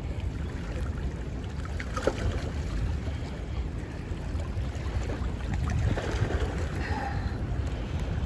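A steady low rumble of wind buffeting the microphone over churning spillway water, with a sharp click about two seconds in and a few faint taps.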